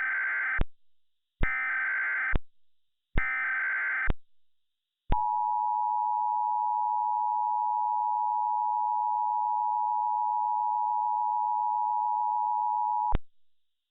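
Emergency Alert System tones: three bursts of SAME header data, a digital warble, each about a second long and about a second apart, coding an Emergency Action Notification. Then the two-tone attention signal (853 and 960 Hz) holds steady for about eight seconds and cuts off suddenly near the end.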